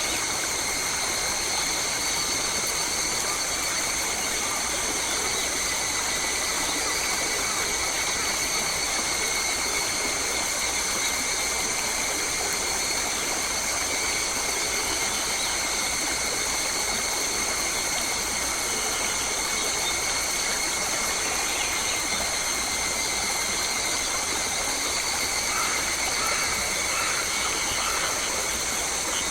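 Steady rush of a forest stream with a constant high-pitched whine running through it, and a few faint chirps near the end.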